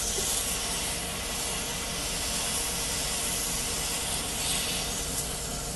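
Wood lathe running steadily while bare hands rub walnut oil into the spinning olive-wood blank, giving an even hiss.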